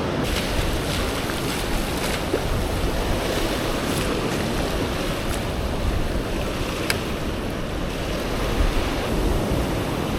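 Big ocean swell surging and washing over a rock ledge in a steady wash of whitewater, with wind on the microphone. A few faint, sharp ticks sound over it.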